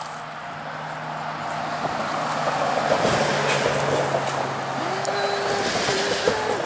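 A pickup truck carrying a camper driving across a road bridge. Its tyre and engine noise swells over the first three seconds and then holds loud, with a steady hum joining about five seconds in.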